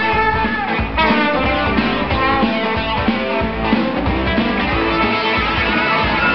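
Rock band music with electric guitar.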